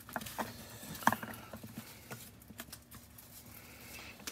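Small clicks and light taps of a wooden guitar bridge and its plastic jig being handled and set down on the guitar's top, the sharpest click about a second in.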